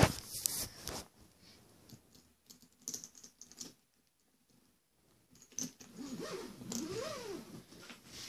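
A suitcase being handled and opened for unpacking: scattered clicks, knocks and rustles, with a sharp knock at the start and busier handling from about five and a half seconds in. A brief rising-and-falling hum sounds near the end.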